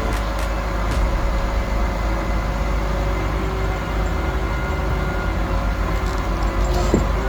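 Heavy machinery engine running steadily.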